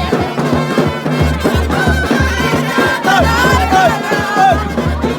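Loud music with a heavy bass beat.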